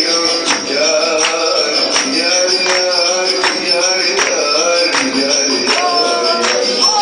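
Dance music with a steady beat of a little under two strokes a second under a melody line.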